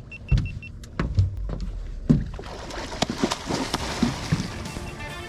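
Heavy knocks and thumps of gear and hands on a fishing boat, opening with a quick run of short, high electronic beeps. From about halfway there is a denser rushing noise with scattered clicks.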